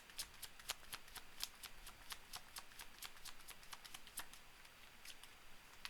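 A tarot deck being shuffled by hand: a faint, quick run of soft card snaps and flicks, several a second.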